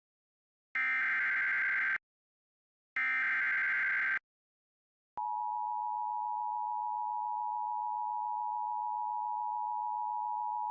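Emergency Alert System broadcast: two one-second bursts of buzzy digital SAME header data about two seconds apart, marking the start of a new alert. About five seconds in, a steady single-pitch alert attention tone begins.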